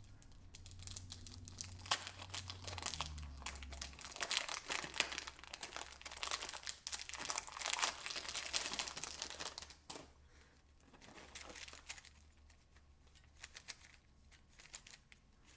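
Plastic packaging crinkling while a 3x3 puzzle cube is handled and turned: dense crinkling and clicking for about ten seconds, then fainter scattered clicks.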